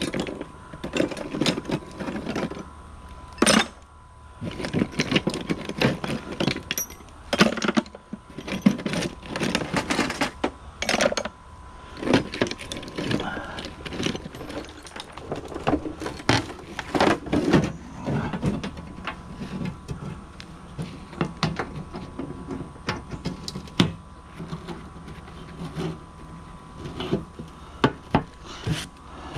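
Old metal hand tools clinking and clanking irregularly as they are picked through and tossed onto a scrap pile, with many sharp knocks throughout.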